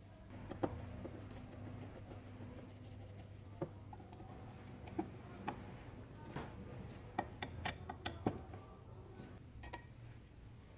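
Light metal clicks and clinks of a screwdriver and small screws and parts being worked into the cast gear-housing cover of an old electric chainsaw, scattered taps that come thickest past the middle, over a faint steady low hum.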